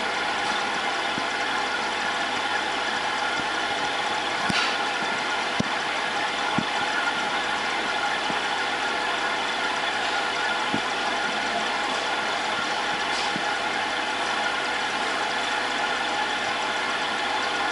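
Aquarium pump running steadily, a constant mechanical hum and hiss, with a few faint clicks.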